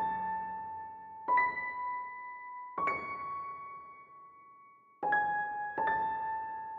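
Background music: slow single piano notes, about five struck one after another, each left to ring and fade.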